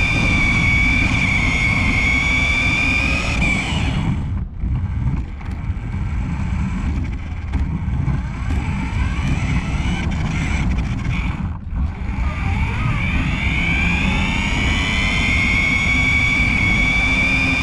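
Onboard sound of an RC car driving: a high motor and gear whine over a constant low rumble of tyres and chassis vibration. The whine holds steady at speed, drops away twice as the car slows, and climbs in pitch as it speeds up again, holding high near the end.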